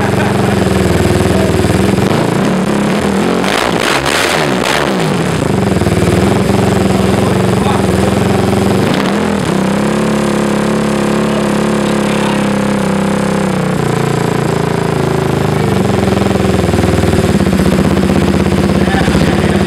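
Kawasaki KFX450R 450cc single-cylinder engine running through an FMF titanium muffler, with its intake restricted through a 20 mm hole. It is revved up and back down about four seconds in and again around nine seconds, then settles into a steady idle.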